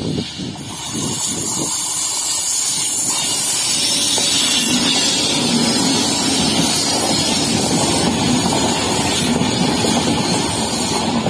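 Indian Railways WAP-7 electric locomotive and its passenger coaches passing close by at speed: a loud, steady rush of wheels on rail and moving air that builds over the first second or two as the locomotive nears, then carries on as the coaches go by.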